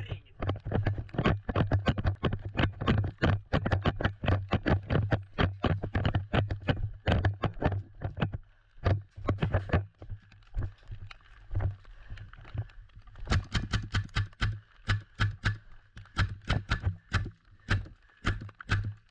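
Footsteps of a person moving quickly on foot, about three to four steps a second, each with a heavy thud; they slow and space out near the middle, then quicken again.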